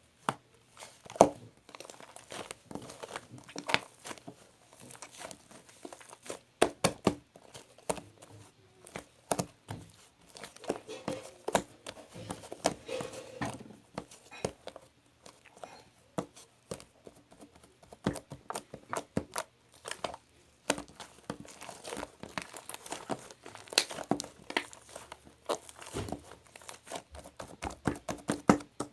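Close-up crinkling and crackling of something being handled, with many irregular sharp clicks and taps.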